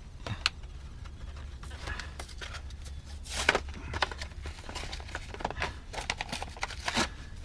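A tire plug kit's packaging being opened by hand: crinkling and tearing with scattered clicks and snaps, the loudest burst about halfway through.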